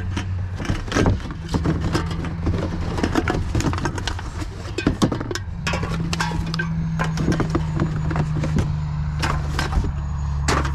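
Rubbish being rummaged through in a bin: rustling, crinkling and knocking of bags and packaging in many short irregular clicks, over a steady low mechanical hum.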